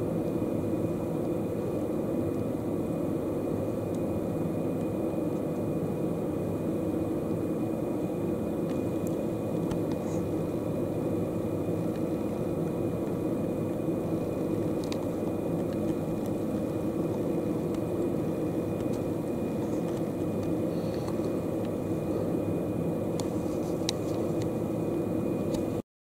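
Steady low mechanical rumble and hum, with a few faint short ticks in the second half.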